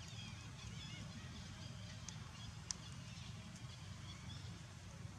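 Faint outdoor ambience: a steady low rumble with scattered short, high chirps, and one sharp click a little past halfway.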